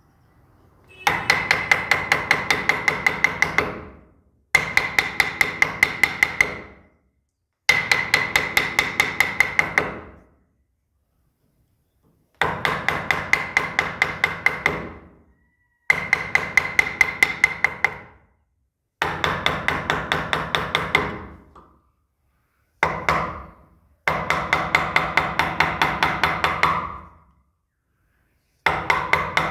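Steel wood-carving chisel driven into hardwood with quick hammer taps, each tap ringing like metal. The taps come about five a second in runs of two to three seconds, about nine runs, with short pauses between them as the chisel is repositioned.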